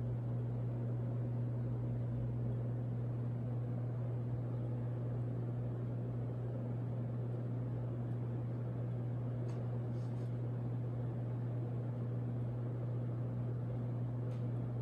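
Home Depot Trice ceiling fan, fitted with blades from a 44-inch Minka Aire Supra, running steadily: a constant low motor hum under an even rush of air, with a few faint ticks.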